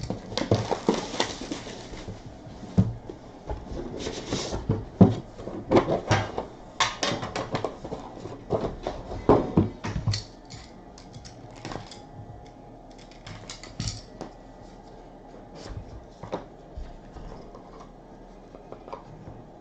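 Handling noises from opening a box of trading cards and working through its packaging: a quick run of clicks, taps and rustles, busiest in the first half, thinning to scattered light clicks after about ten seconds.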